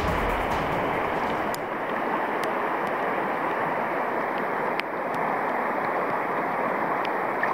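Rushing water of a river rapid heard close to the surface, a steady even noise, with a few faint clicks.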